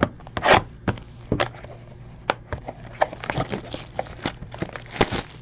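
Sealed baseball card box being handled and unwrapped by hand: its plastic shrink wrap crinkles and rustles, with scattered clicks and taps of fingers on the cardboard.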